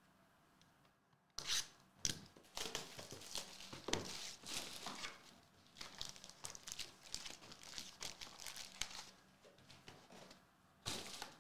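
Plastic wrapping torn and crinkled as a Topps Finest baseball card box is opened by hand and its card packs pulled out: a run of sharp crackling tears starting about a second and a half in, with another burst near the end.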